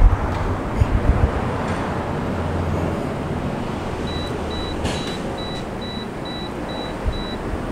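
Outdoor ambience: a low, uneven rumble of wind on the microphone and passing traffic. About four seconds in, a run of about eight short, high-pitched electronic beeps sounds, a couple each second.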